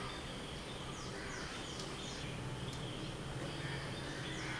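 Quiet, steady background ambience with a few faint, high, falling chirps about a second in and again near the end.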